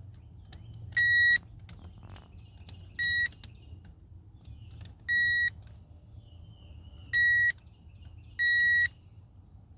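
A Power Probe circuit tester gives five short, high-pitched beeps at uneven intervals, one each time its tip touches a fuse and finds voltage. Every fuse checked shows power, so the fuses are good. Faint clicks of the probe tip sound between the beeps.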